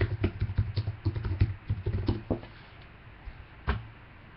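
Fast typing on a computer keyboard for about two seconds, entering a web search, followed by a single sharper click.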